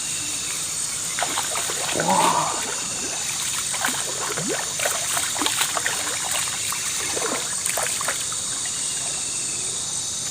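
Water dribbling with small, irregular splashes, over a steady high chirring of night insects.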